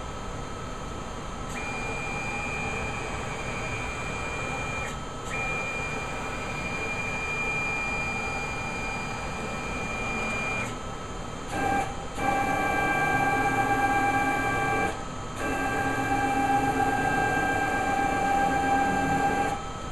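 Stepper motors of a JCUT-6090A CNC router whining steadily as its axes are jogged. A single high whine starts about a second and a half in, breaks briefly near five seconds and stops near ten and a half. After a short pause comes a louder, fuller whine in two runs of about three and four seconds.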